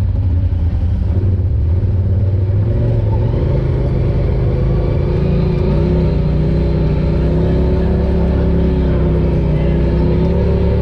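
Polaris RZR Pro XP side-by-side's engine running under way, loud and steady. Its pitch holds with small rises and dips from about three seconds in.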